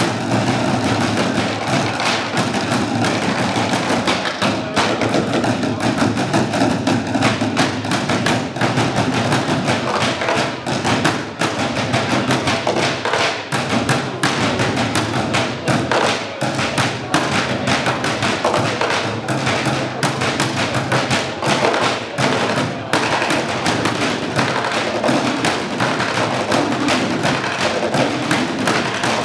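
Drumsticks beating on plastic wheelie bins in a percussion routine: a dense, unbroken run of rhythmic thuds and stick clicks.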